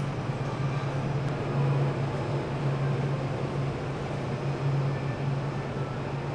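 A low mechanical hum, steady in pitch and swelling slightly every second or two, over an even rumble, like a motor or engine running.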